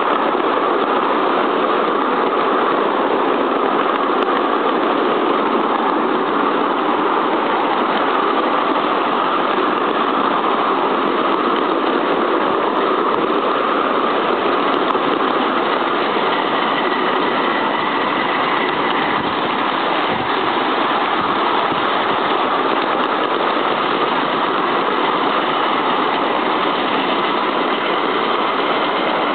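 Miniature 7¼ inch gauge 2-4-2 tender steam locomotive and its passenger carriages running on the track, heard from the front carriage: a steady, unbroken running noise of the engine and the wheels on the rails.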